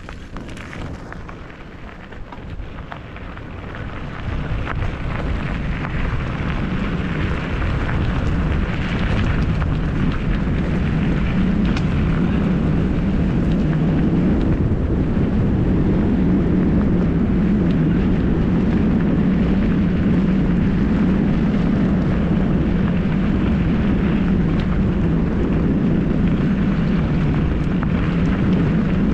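Wind buffeting the camera microphone, along with tyre rumble on a gravel track. It builds over the first six seconds as the speed of the descent picks up, then stays steady and loud.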